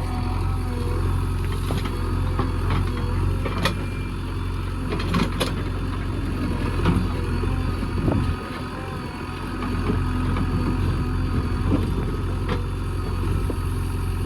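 JCB 3DX backhoe loader's diesel engine running steadily, with a few sharp metallic clanks. The low engine note drops for about a second and a half a little past the middle, then picks up again.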